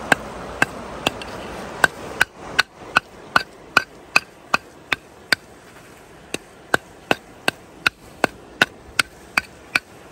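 Metal rod tapping repeatedly against a rusty, mud-caked iron find: sharp ringing metallic clinks about two and a half a second, with a pause of about a second just past halfway.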